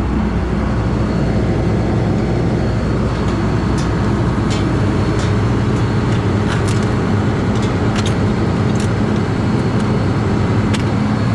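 Combine engine running steadily, with a few light metallic clicks.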